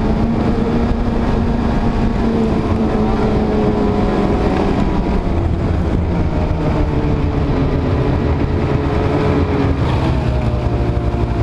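Snowmobile engine running under way. The engine note sinks gradually and drops lower again about ten seconds in, over a steady rush of noise.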